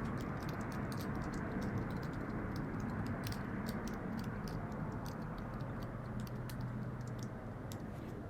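Room tone: a steady low rumble and hum with many light, irregular clicks scattered through it.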